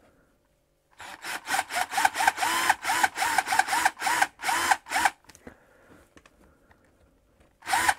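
Power drill pulsed in short trigger bursts while a twist bit countersinks pilot holes in a wooden plate, each burst spinning up and down in pitch. A rapid string of bursts starts about a second in and stops a little after halfway, then starts again near the end.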